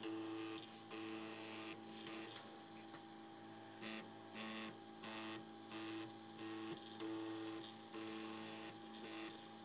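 Printrbot Simple 3D printer printing: its stepper motors whine in short steady tones that step to a new pitch every half second or so as the print head moves. A constant tone runs underneath, and several brief hissy bursts come and go.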